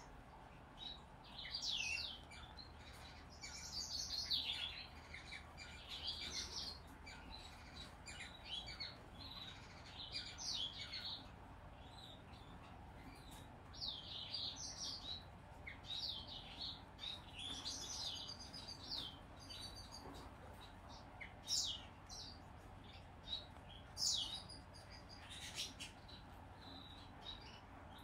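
Zebra finch × owl finch hybrid chick giving short, high, downward-sliding chirps in scattered bursts every second or two.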